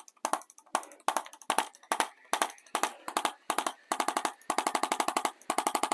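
Handheld chiropractic adjusting instrument tapping along a patient's spine: sharp mechanical clicks, loosely spaced at first, then a faster, more even run of taps from about three and a half seconds in.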